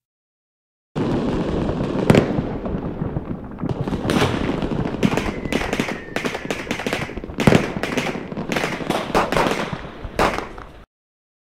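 Fireworks going off in a dense crackling barrage with many sharp bangs, starting about a second in and cutting off abruptly shortly before the end. A faint falling whistle comes through midway.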